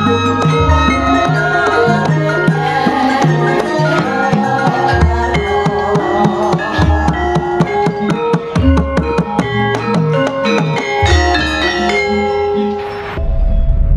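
Music with drums, a pulsing bass line and many quick melodic notes. About a second before the end it breaks off into a low rumbling drone.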